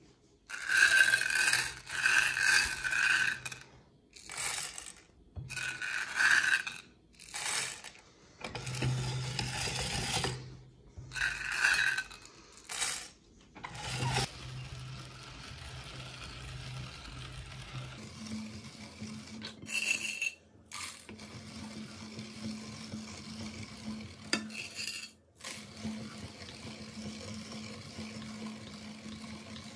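Hard candy-coated chocolate buttons poured in several loud bursts, clattering against a plate and into the metal hopper of a hand-cranked meat grinder. Later the grinder is cranked, its screw crushing the candies with a quieter, steady rasping.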